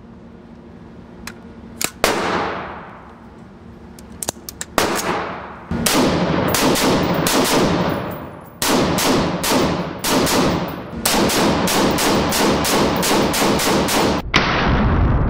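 Faxon AR-15 rifle firing in semi-automatic, each shot echoing in an indoor range. A couple of single shots, then rapid strings from about six seconds in, quickening to about three shots a second near the end.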